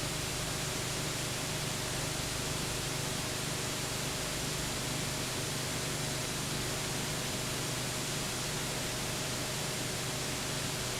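Steady hiss with a faint low hum and no other sound: the empty noise floor of a transfer of silent cine film.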